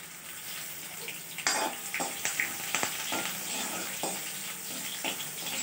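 Crushed garlic, curry leaves and mustard seeds sizzling in hot oil in a metal kadhai while the spices are tempered, with a steel ladle stirring and clicking against the pan at irregular intervals.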